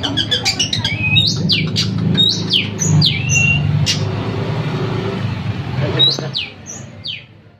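Caged long-tailed shrike (cendet) calling: a fast chattering run first, then a series of sharp sweeping call notes, a group of them and another group near the end. A steady low hum runs underneath until shortly before the sound fades out.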